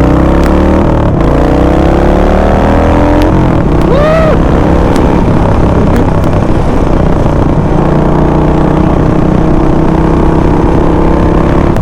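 Harley-Davidson Sportster 48's air-cooled V-twin running on the road. Its pitch rises as it accelerates over the first three seconds, dips briefly, then holds steady under a heavy rush of wind on the microphone. A short rising-and-falling tone sounds about four seconds in.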